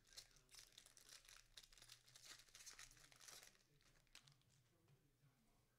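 Faint crinkling and tearing of a trading-card pack wrapper being torn open by hand, a dense run of small crackles for about three and a half seconds that then thins to a few scattered ticks.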